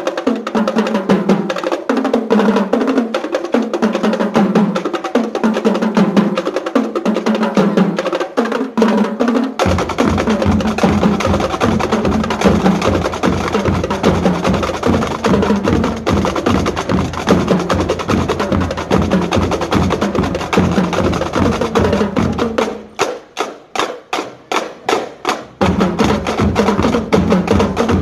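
Marching band drum line of snare drums and bass drums playing a fast cadence of dense, rapid strokes. Deep bass drum strokes join about ten seconds in. Near the end the playing breaks into a few separate, spaced hits before the full drumming resumes.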